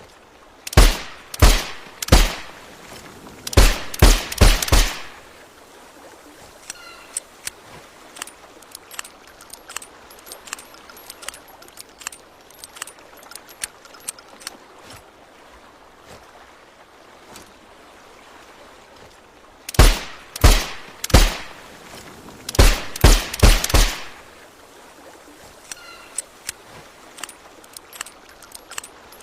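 Suppressed Nagant revolver firing two strings of seven shots each, three spaced shots followed by four quick ones in each string. Faint small clicks and ticks come between the strings.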